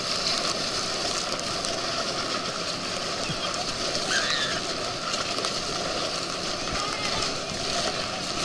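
Steady rush and splash of water spraying against an inflatable towable tube pulled at speed through a motorboat's wake.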